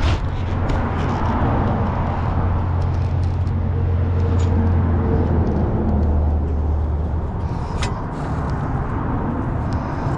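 Heavy diesel vehicle engine running steadily with a low rumble; its pitch drops a little about halfway through. A single sharp click comes near the end.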